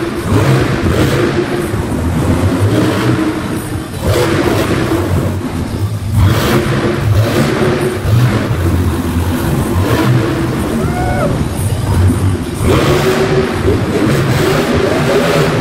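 Monster truck engines revving loudly, the pitch rising and falling again and again as the trucks throttle up and back off while driving around.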